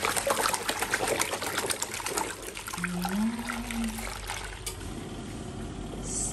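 Water trickling and splattering out of a portable folding washing machine's drain hose into a floor drain, busier in the first half and thinning toward the end.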